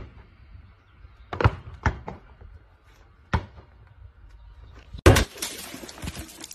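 A rubber ball bounced on a paved patio: four sharp thuds over about two seconds. About five seconds in, a loud rushing noise starts and lasts about a second and a half.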